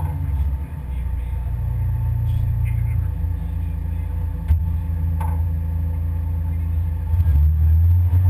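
Pinzgauer off-road vehicle's engine running with a steady low rumble and a faint steady whine, with one sharp knock about four and a half seconds in.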